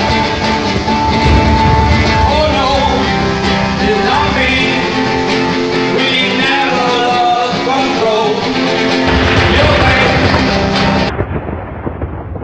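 Live rock music, led by guitar, with singing. About eleven seconds in it cuts off abruptly and gives way to a quieter, duller sound.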